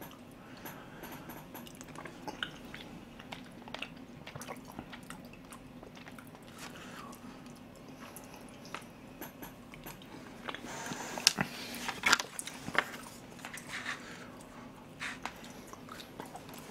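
A person eating rice porridge close to the microphone: soft chewing and mouth sounds with small clicks of a plastic spoon in a plastic tub. A run of sharper clicks comes about two-thirds of the way through.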